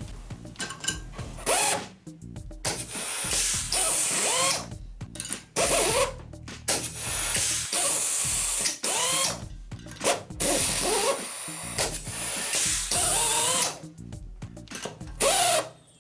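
Sumake ST-6355 air-hydraulic rivet nut tool running through repeated setting cycles: the air motor whirs to spin a nut on and off the mandrel, and loud hisses of air come with each pull stroke. Several cycles follow one another with short pauses between them, as M5 rivet nuts are set into a metal sheet.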